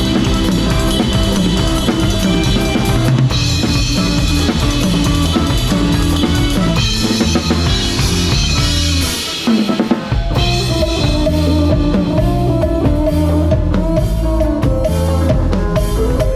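Live band playing a cha-cha with a drum kit up front: kick drum, snare and rimshots over bass and other instruments. About nine seconds in, the bass drops out for a moment, then the full band comes back in.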